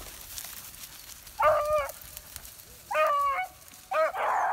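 A beagle hound barking twice, two short barks about a second and a half apart. A short burst of hiss follows near the end.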